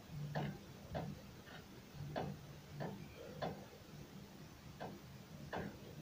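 Steering tie rod end on a Renault Duster's front suspension knocking as it is twisted back and forth by hand: a regular series of short clicks, a little under two a second. The knock comes from play in the tie rod end, which the owner believes should not happen on any car and suspects means the tie rod end is worn out.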